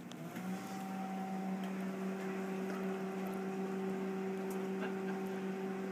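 Microwave oven starting up and running with a steady, even hum that comes on just after the start.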